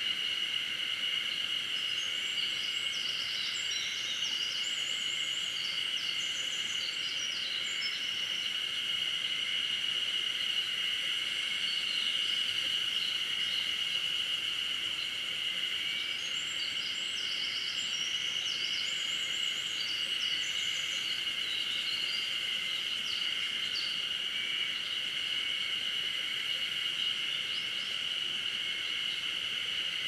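Summer mountain-forest ambience: a steady, high-pitched chorus of insects. Songbirds sing short, patterned phrases over it in two spells, a few seconds in and again about halfway through.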